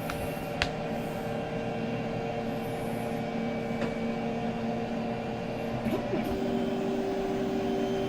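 Weedo M2 desktop 3D printer running through its build-plate levelling routine: a steady motor hum with pitched tones from its stepper motors and fans, shifting to a different pitch about six seconds in, with a few light clicks.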